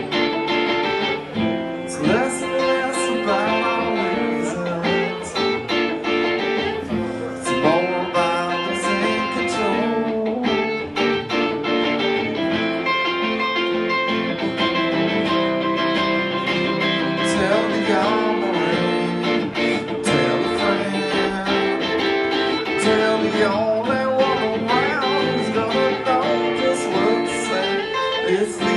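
Acoustic guitar played live in an instrumental passage: a lead line with many bent notes over ringing chords, at a steady, loud level.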